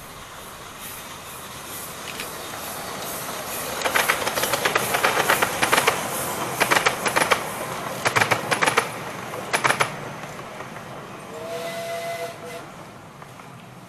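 Miniature steam train passing close by, its wheels clattering over the rail joints and crossing for several seconds. About a second and a half after the clatter ends, a short steam whistle sounds once as the train moves away.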